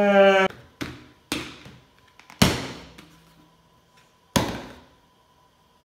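A brief crying wail, then four sharp knocks a second or two apart as a plastic wipes canister is flipped and lands on a ping-pong table.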